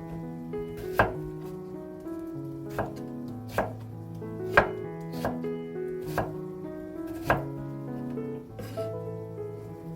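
Knife slicing vegetables on a cutting board: about ten sharp, unevenly spaced strikes, the loudest about a second in and near the middle, over soft background music.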